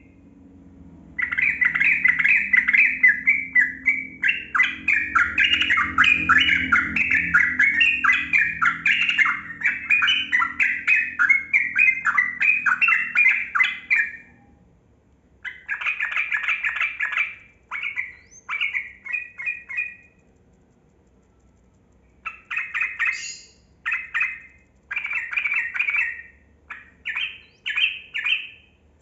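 Yellow-vented bulbul (trucukan) singing: one long rapid chattering phrase of about thirteen seconds, the long run breeders call 'ropel panjang', followed by several short bursts of song with brief pauses between.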